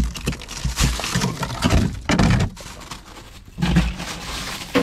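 Crushed ice crunching and shifting as a hand digs through it in a fish box, in several irregular bursts.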